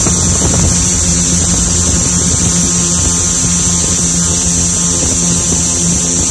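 Small drone's motors and propellers running in flight, giving a steady, loud buzzing hum with a constant high hiss above it.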